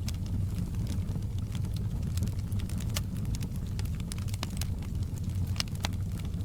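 Wood fire crackling: a steady low rumble of burning with frequent sharp pops and snaps at irregular intervals.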